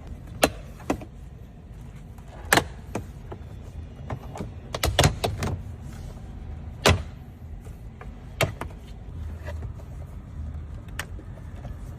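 Scattered sharp clicks and knocks of car interior trim parts being handled and taken off, with a faint low hum underneath.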